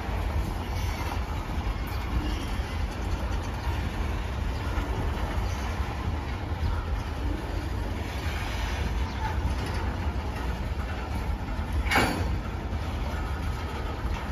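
A train passing on the main line, its wheels running on the rails in a steady low noise, with one sharp clank about twelve seconds in.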